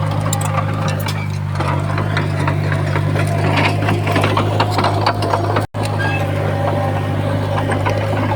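Komatsu D20P crawler bulldozer's diesel engine running steadily, with frequent clicks and rattles over it. The sound cuts out for an instant a little before six seconds in.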